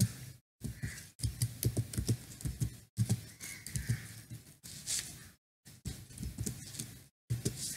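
Typing on a computer keyboard: a quick, uneven run of key clicks with a few short pauses.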